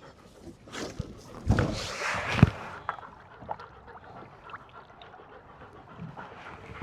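A short splash of water ending in a hollow thump about two seconds in, as a redfish is let go back into the water beside the boat.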